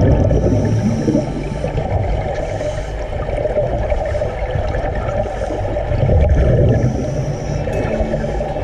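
Underwater rumble and gurgling of a scuba diver's exhaled regulator bubbles, heard by an underwater camera. There are two louder swells of bubbling, one at the start and one about six seconds in.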